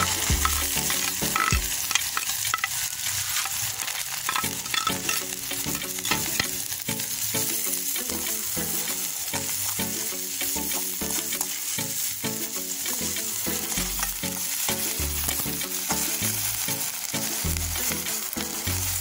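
Chopped onions and green chillies frying in hot oil in a wok, a steady sizzle, with a spatula scraping and knocking against the pan as they are stirred.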